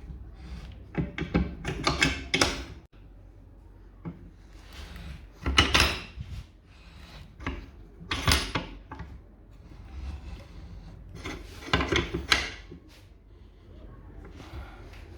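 Wooden parts sliding and knocking against each other in four short bunches a few seconds apart, like a drawer being pushed in and pulled out.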